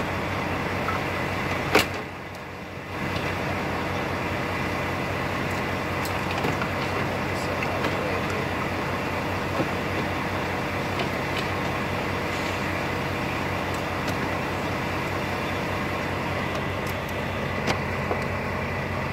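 Steady low hum of a Volvo VNL truck running, heard inside the cab, with a single sharp click about two seconds in and a short quieter gap right after.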